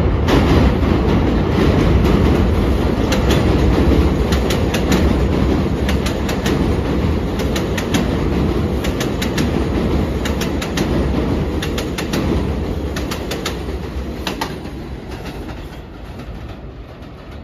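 New York City subway J train running past on the elevated steel track: a heavy low rumble with repeated clicks of the wheels over rail joints. It fades away over the last few seconds as the train moves off.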